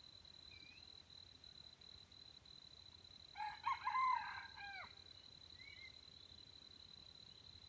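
Wild red junglefowl rooster crowing once, a short crow of about a second and a half about halfway through. A faint steady high-pitched whine runs underneath.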